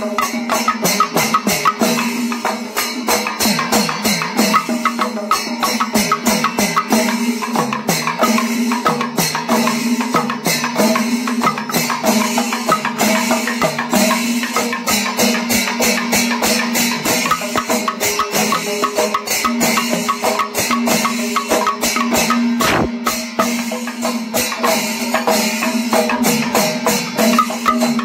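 Kerala panchavadyam temple ensemble playing: dense, rapid strokes of timila and maddalam drums with ilathalam cymbals clashing, over a steady held tone.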